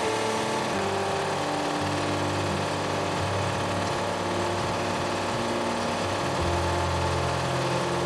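Background music: held, chord-like synth tones that change pitch in steps every second or so over a steady low hum.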